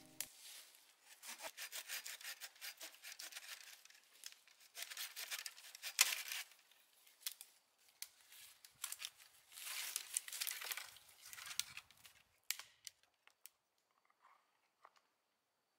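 Small hand pruning saw cutting through a dry dead branch in quick, repeated rasping strokes, stopping about twelve seconds in. A few light clicks follow.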